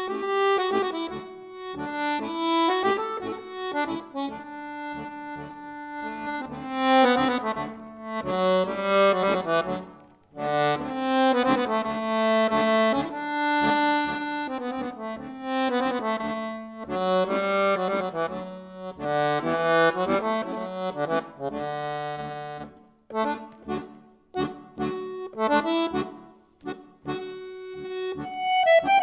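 Siwa & Figli piano accordion playing a solo klezmer tune: the right hand carries the melody on the keyboard while the left hand plays the bass buttons. There are short breaks between phrases about ten seconds in and again near the end.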